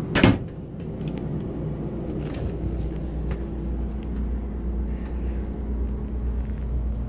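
Steady low hum of the motorhome's onboard generator and ducted air conditioner running. A single sharp knock comes about a quarter second in, followed by a few faint clicks.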